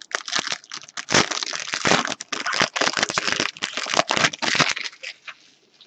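Foil wrapper of a Bowman baseball card pack crinkling and tearing as it is pulled open by hand, a dense crackle that dies away about five seconds in.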